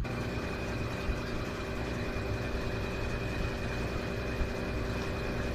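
Washing machine spinning: a steady motor hum with a thin, high, constant whine.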